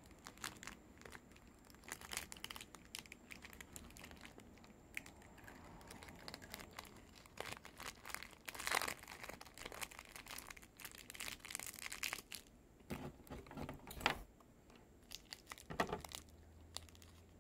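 Plastic candy wrapper crinkling and tearing as it is handled and opened by hand, in irregular crackles that grow louder around the middle and again near the end.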